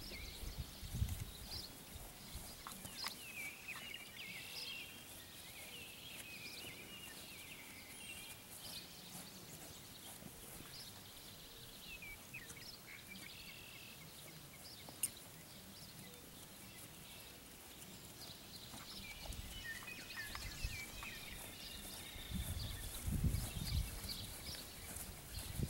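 Small birds chirping on and off throughout, over open-air background noise. About a second in, and again in a longer run near the end, come low dull thuds of a mare's and foal's hooves as they walk close by on turf.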